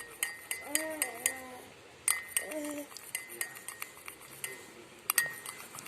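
A spoon stirring lime juice and honey in a glass, clinking irregularly against the sides with short ringing chimes. Two short pitched calls sound faintly behind it, about one and two and a half seconds in.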